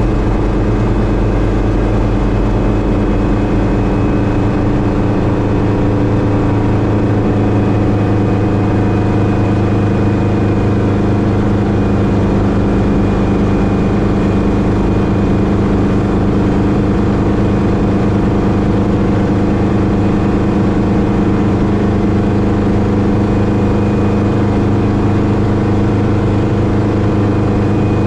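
Hughes 269C (Schweizer 300C) helicopter heard from inside the cockpit: its piston engine and rotor run steadily with an even pitch as it flies in low and slow over a field to land.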